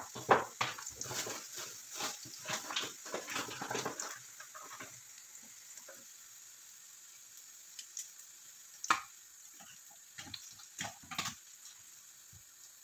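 Minced garlic frying in hot oil in a frying pan: a steady sizzle with dense crackling for the first four or five seconds, then thinner. A sharp click comes about nine seconds in, and a few more clicks follow soon after.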